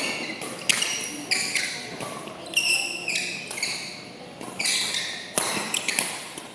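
Badminton rally: rackets repeatedly smacking the shuttlecock, mixed with short, high squeaks of sneakers on the court floor as the players lunge and shuffle.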